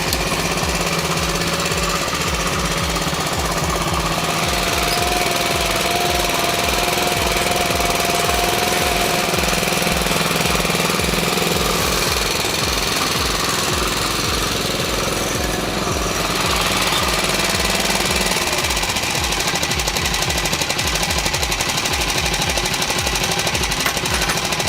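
A small engine running steadily with a rapid, even run of firing pulses.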